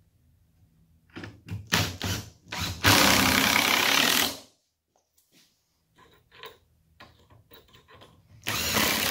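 Cordless DeWalt drill/driver working screws in a cedar slab. It gives a few short stop-start bursts about a second in, then a steady run of about a second and a half. After a pause with a few light clicks, a second steady run starts near the end.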